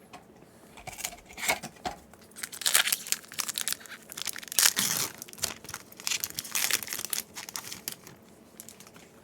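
A Yu-Gi-Oh booster pack's foil wrapper being torn open and crinkled by hand, in a string of irregular rustles and tears.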